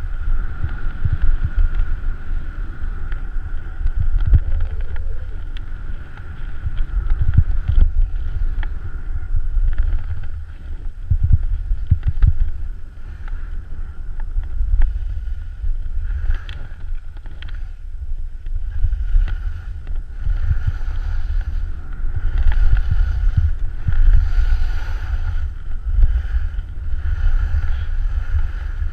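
Wind buffeting an action camera's microphone on a downhill ski run, a heavy gusting rumble, with skis scraping and chattering over packed, tracked snow.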